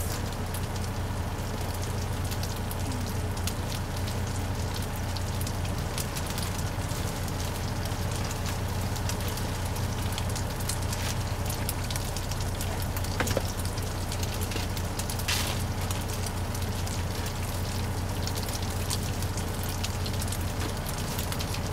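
Chorizo sizzling and crackling as it fries in a pan, with a few sharper pops about halfway through, over a steady low hum.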